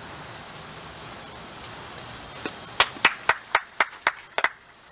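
A quick run of about eight sharp smacks, roughly four a second, over steady outdoor background noise.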